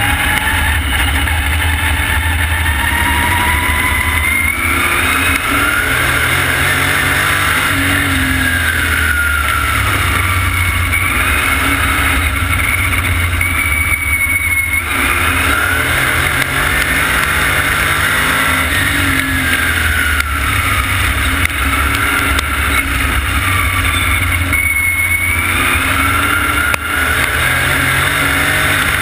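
Vintage supermodified race car's engine at racing speed, heard from on board: its pitch climbs and falls again in repeated swells as the car speeds up and slows around the dirt oval, over a heavy low rumble of wind on the open cockpit.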